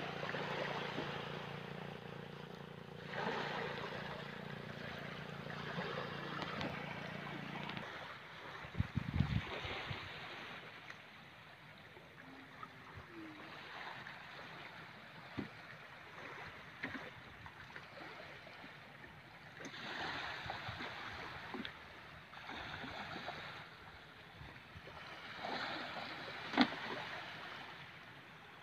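Small waves washing over a shallow sandy shore, with wind on the microphone, swelling and fading. For about the first eight seconds a steady low engine hum runs underneath and then stops. A few sharp knocks come through, the clearest near the end.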